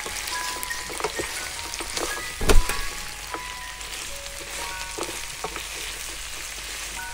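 Oxtail and sliced red onion sizzling as they fry in a pan, stirred with a wooden spoon that scrapes and taps against the pan, with one louder knock about two and a half seconds in.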